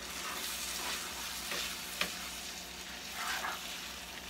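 Ground beef sizzling in a skillet on a gas stove as it is stirred with a spatula, with repeated scraping strokes and a sharp tap about two seconds in.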